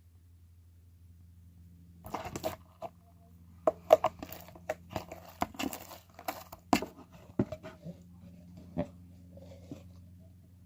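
Hard slime being squeezed and pulled by hand, giving irregular sharp crackles and snaps for several seconds, over a steady low hum.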